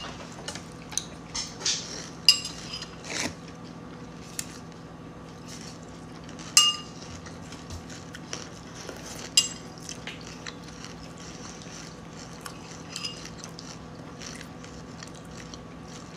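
Metal spoon clinking and scraping against a ceramic bowl while eating, with several sharp clinks that ring briefly, over a steady low hum.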